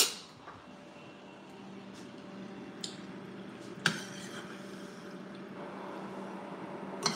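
Oil frying in a small stainless-steel saucepan with a steady sizzle, a metal spoon clinking once against the pan about four seconds in and again near the end.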